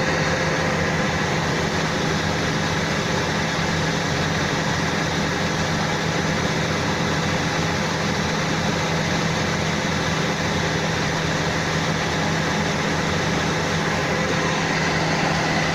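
Rice combine harvester running, its engine giving a steady, unbroken drone.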